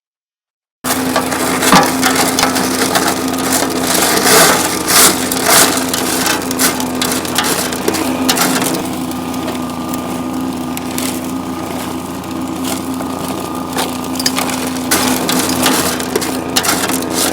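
Small gas engine of a dry washer running steadily while dry gravel and rock rattle and crunch through its screen and tray. It starts abruptly about a second in, and the crunching is densest in the first half.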